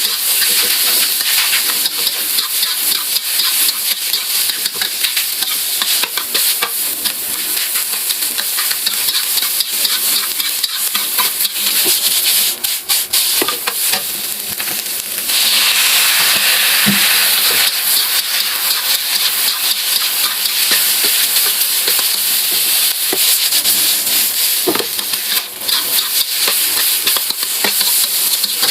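Food sizzling in a hot pan while being stirred, with a spatula scraping and clicking against the pan. The sizzle gets louder about halfway through.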